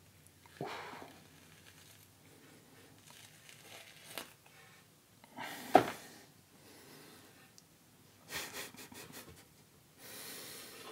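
Knife prying the skin off a raw aloe vera leaf: scattered wet tearing and scraping sounds as the tough skin is peeled from the slimy gel, the loudest one about halfway through and a quick run of them near the end.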